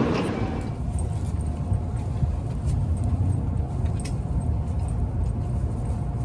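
Low steady rumble of a Shinkansen train with a faint steady hum and scattered light clicks. A louder rushing noise dies away in the first half second.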